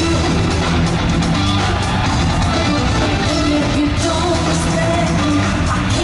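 Live pop music amplified through an arena sound system, with a woman singing over a band track with held bass notes.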